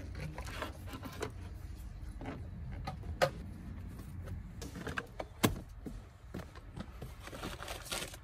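Plastic door sill trim and its clips being handled at a car's door opening: scattered clicks and knocks over a low rumble, with two sharp clicks about three seconds in and again about five and a half seconds in.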